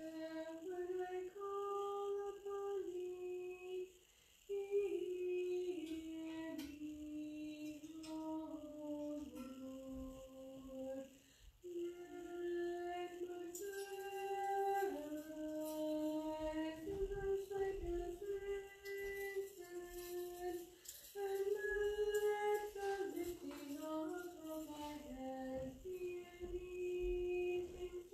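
Unaccompanied Orthodox liturgical chant sung by women's voices, often in two parts, moving stepwise through long held notes with short breaths between phrases. Faint high clicks run through the middle.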